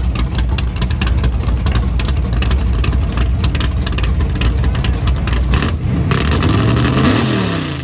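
A drag-race Fox-body Mustang's engine running close by with a choppy, uneven idle. About six seconds in a rushing hiss joins it, and the engine note sweeps up and down as it is revved near the end.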